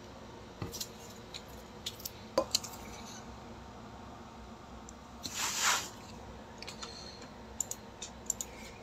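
Handling noise: scattered light clicks and taps, with a short rustling hiss a little past halfway.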